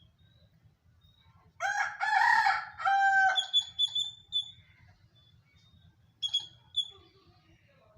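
A rooster crows once, starting about a second and a half in and lasting about two seconds. High, thin chirps follow just after it and again about six seconds in, the squirrel's call.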